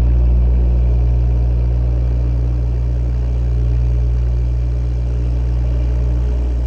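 Loud, steady, deep rumbling drone from a dark psycore track's intro, with faint hissing textures above it and no beat.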